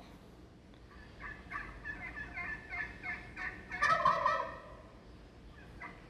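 Recording of a male wild turkey gobbling: a quick run of short notes lasting about three seconds, loudest near its end.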